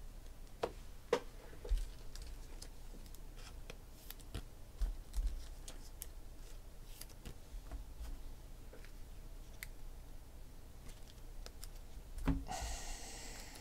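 Scattered light clicks and taps of things being handled off the table's edge, then near the end a thump and a short scraping rustle as a hand comes down by the stack of trading cards.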